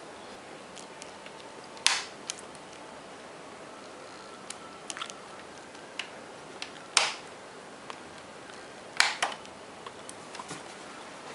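Plastic snap clips of a Samsung Series 3 NP350U2B ultrabook's case popping loose as the case is pried apart with a flathead screwdriver: several sharp clicks, the loudest about two, seven and nine seconds in. These pops are normal: they mean the case is being opened the right way, not broken.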